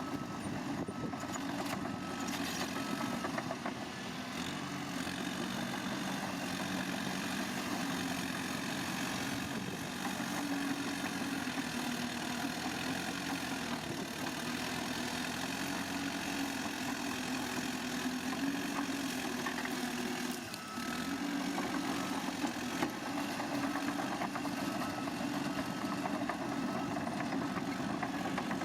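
Diesel engine of heavy earthmoving machinery running steadily, its pitch rising and falling as it works, with a brief dip about twenty seconds in.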